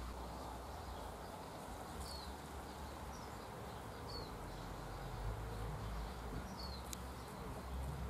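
A bird's short, high chirps, each falling in pitch, repeated about every two seconds over a steady low rumble. There is a single sharp click near the end.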